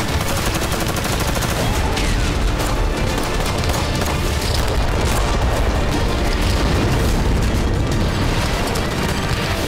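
Dramatic background music mixed with rapid gunfire and heavy booms from a war-footage montage.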